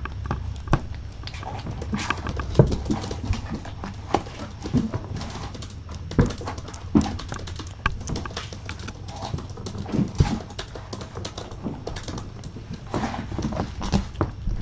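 Kittens playing, with an irregular run of knocks, thumps and scrabbling from their paws on the carpet and the cardboard scratcher.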